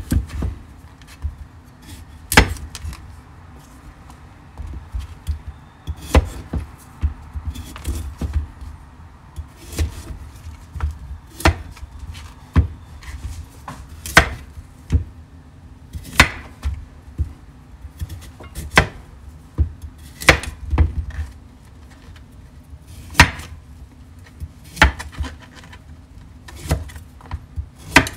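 Large kitchen knife cutting through raw beetroots and knocking down onto a plastic cutting board: sharp, irregular knocks every second or two.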